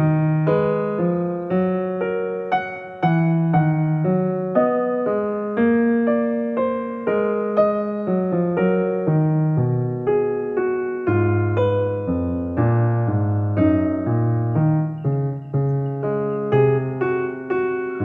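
Soft background music: an electric piano playing a gentle melody of overlapping notes.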